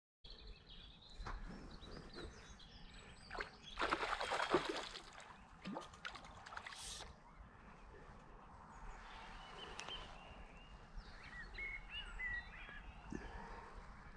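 Outdoor ambience at a still-water lake: small birds chirping, with a short noisy rustling burst about four seconds in.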